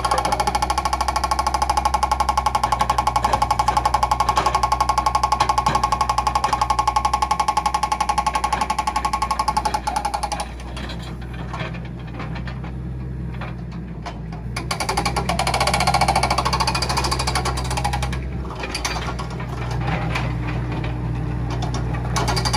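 A Case 695ST backhoe loader running, with a rapid, even clatter and a steady whine for about the first ten seconds. It then settles to a quieter, smoother run, and the clatter picks up again near the end.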